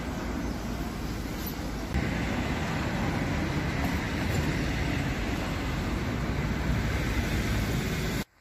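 Steady city traffic noise, a dense rumble of passing vehicles, getting louder about two seconds in and cutting off suddenly near the end.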